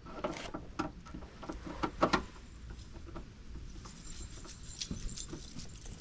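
Light clicks and rattles of hand tools and small hardware being handled, with two louder knocks in the first two seconds and fainter jingling clicks later.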